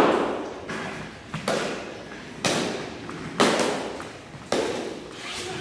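Practice swords knocking together in staged fighting: about six sharp knocks roughly a second apart, each ringing out in a large echoing hall.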